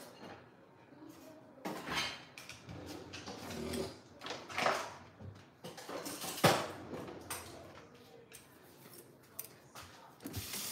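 Kitchen clatter of pots, pans and utensils being handled, a scattered series of knocks and clinks, the sharpest about two, four and a half and six and a half seconds in.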